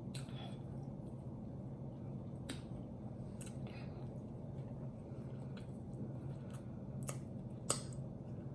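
Someone eating chicken with sauce-covered hands: scattered small clicks and smacks from chewing and sticky fingers over a faint steady low hum.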